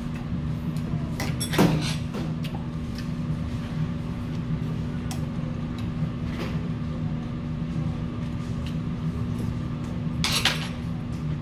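Metal chopsticks clinking and tapping against brass bowls while eating soup and kimchi, with a sharp clink about a second and a half in and a short rustling burst near the end, over a steady low hum.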